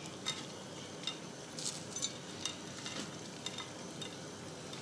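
Faint, scattered light clicks and ticks over a steady hiss: toasted sliced almonds dropped by hand onto a chocolate-glazed cake and its plate.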